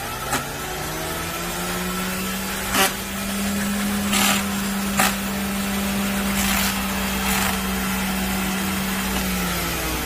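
Spindle drink mixer spinning a steel shaker tin of iced cocktail: the motor's hum rises in pitch as it spins up over the first couple of seconds, holds steady, and winds down near the end. Several short, sharp rattles from the tin break in along the way.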